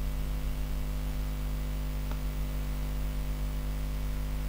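Steady electrical hum with an even background hiss, with one faint click about two seconds in.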